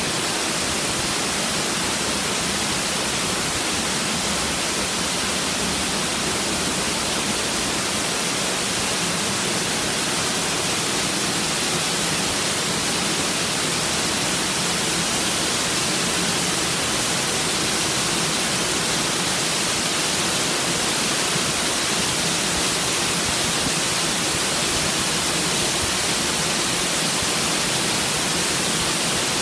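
A curtain of water pouring down and splashing onto rocks and into a pool, recorded close up: a steady, hissy rush of falling water.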